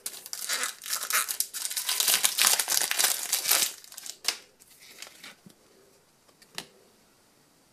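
Foil wrapper of a trading-card booster pack crinkling as it is torn open for the first few seconds, then a few light taps as the cards are handled.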